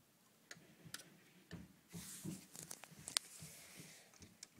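Light plastic clicks and knocks from a LEGO brick model being handled, with soft handling rumble and a sharper click about three seconds in.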